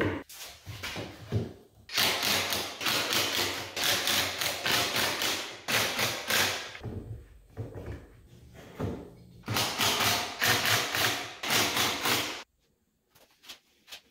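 Cordless power driver running screws into a plywood panel, in two long runs of rapid rattling, with a few knocks of clamps and boards in the first seconds.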